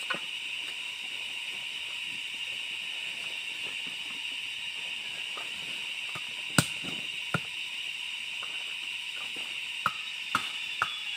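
A steady, high-pitched drone of rainforest insects, with a few sharp clicks from small objects being handled close by: the loudest about six and a half seconds in, and a quick run of them near the end.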